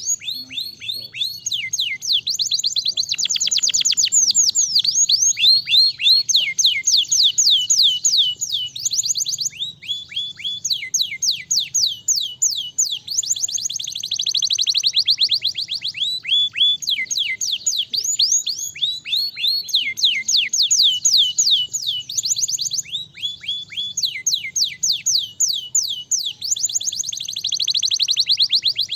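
Domestic canary singing a long, fast song: rolls of rapid falling whistled notes, phrase after phrase with only short breaks.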